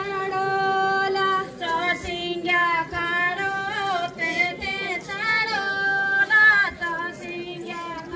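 Women singing a Garhwali jagar folk song: a single melody line with long held notes that bend between phrases.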